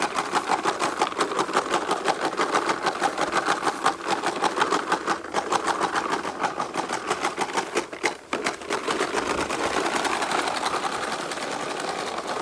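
Toy push lawn mower making a rapid, steady clicking rattle from its plastic noise-maker as it is pushed over grass.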